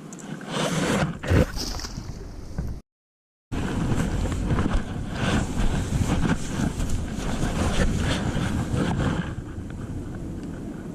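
Wind buffeting the microphone: an uneven, gusty rumble. It breaks off in a short dead silence about three seconds in, then resumes.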